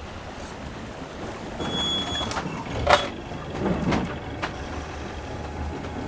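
Wind and sea noise aboard a sailing yacht under way, a steady low rumble, with a short high beep about two seconds in and a sharp knock about three seconds in.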